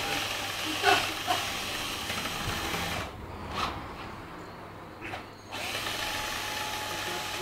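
Power drill running with a wire whisk in its chuck, whipping chocolate mousse in a bowl. It goes quieter for about two seconds midway, then runs steadily again.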